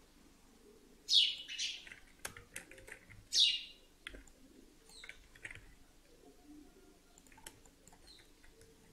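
A bird chirping: three short high calls, each falling in pitch, in the first half, with scattered computer keyboard and mouse clicks.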